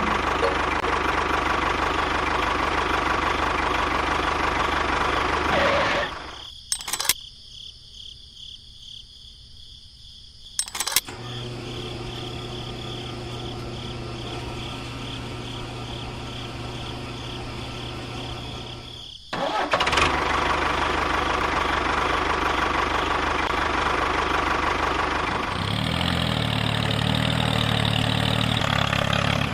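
Engine-like mechanical running in several cut-together stretches: loud and noisy at first, then a quiet gap with two sharp clicks, then a steadier low hum, then loud running again with a sudden change in tone late on.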